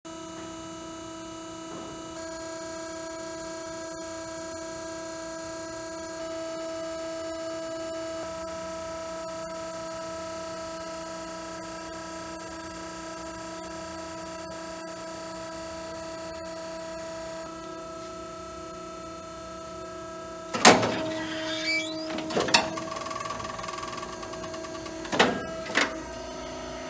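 Steady machine hum from a powered Zed Industries die cutter. About 20 seconds in come several loud metallic clunks and rattles as its sliding carriage is pushed in and out by hand.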